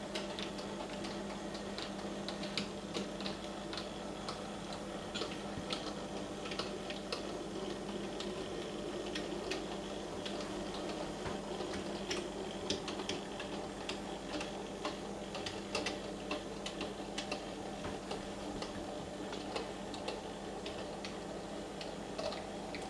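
Small model tram locomotive on a Halling motor bogie running slowly with model wagons, its wheels clicking irregularly over rail joints and pointwork, with a steady low hum underneath.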